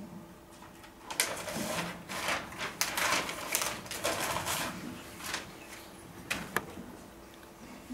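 Sheets of paper rustling and being crumpled in a run of noisy scrunches lasting a few seconds, followed by a few light clicks.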